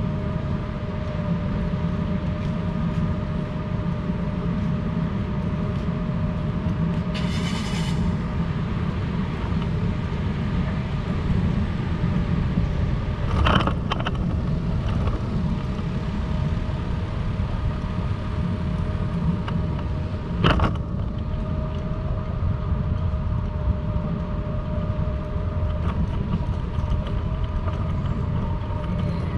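City street ambience with a steady low traffic rumble and a constant mechanical hum. A brief hiss comes early, and two sharp knocks follow around the middle and two-thirds of the way through.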